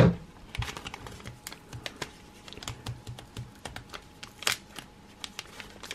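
Shiny foil trading-card pack crinkling and crackling in the fingers as it is handled and worked open, a steady scatter of small ticks and rustles, loudest right at the start.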